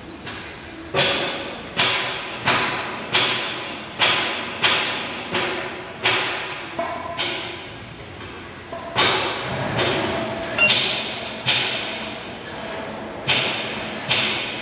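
Hammer striking metal in steady, evenly spaced blows, about three every two seconds, each ringing out briefly, with a short break midway.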